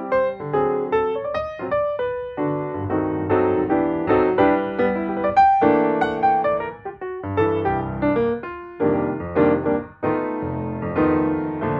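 Background piano music: a gentle solo piece of struck notes and chords.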